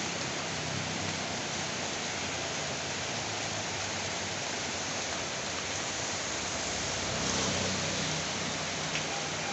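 Heavy rain falling steadily, an even rushing hiss. A low rumble swells briefly about seven seconds in.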